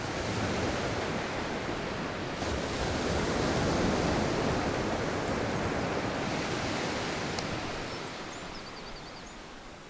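Sea waves breaking and washing up a beach: one broad surge swells to its loudest about four seconds in, then slowly fades.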